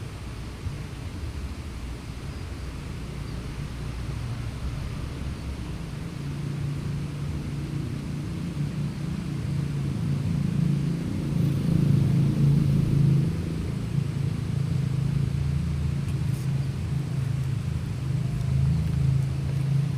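Low rumble of motor vehicles on the road bridge, with a low engine hum that grows louder about halfway through.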